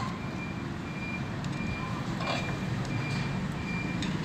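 A repeating electronic beep: short high tones at even spacing, about two a second, over a steady low rumble.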